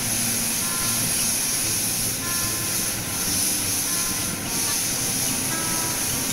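Steady hissing of a cutting torch burning through a tugboat's steel hull plating, throwing a shower of sparks.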